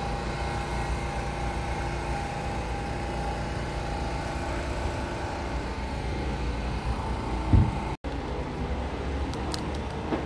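City street traffic noise: a steady rumble of passing vehicles. A short low thump comes about seven and a half seconds in, and the sound cuts out for an instant just after.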